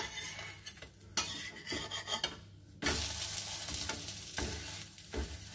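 A metal spatula scraping and clicking against a flat tawa as a pancake is turned over. From about three seconds in comes a steady sizzle as the turned pancake fries in a little olive oil.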